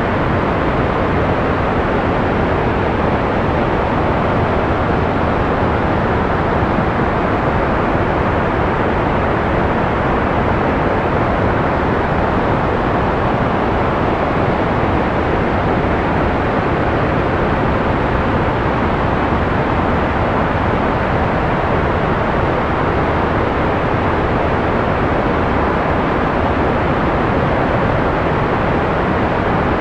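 Steady white noise for sleep: an even, unchanging hiss with its treble rolled off, so it sounds soft and dull rather than sharp.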